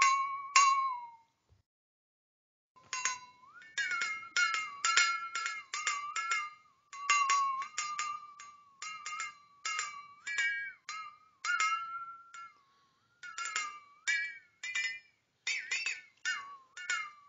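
Flexatone being shaken, its beaters striking the steel blade in quick, irregular strokes. Each stroke rings with a high pitch that slides up and down as the blade is bent. There is a pause of about a second and a half near the start before the playing resumes.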